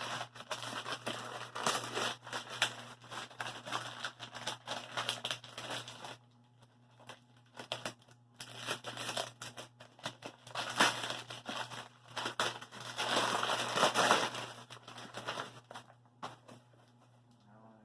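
Packing material being crinkled, torn and pulled out of a cardboard shipping box: irregular bursts of rustling and crackling with short pauses, loudest in a stretch about three-quarters of the way through.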